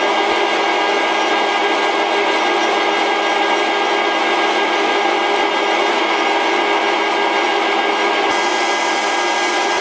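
Small metal lathe running steadily with its gear whine, turning the steel arbor as the tool takes a cut over its damaged surface. A high hiss joins about eight seconds in.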